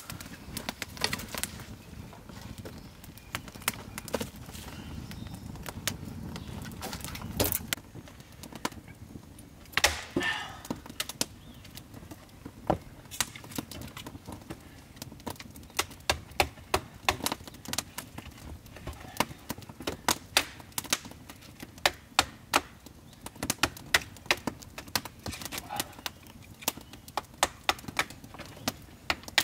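Wooden baton knocking on the spine of a blade set into a stick of dry firewood, splitting it into kindling (batoning). The knocks are sharp and scattered at first, then come in a quick, steady run of about two a second through the second half.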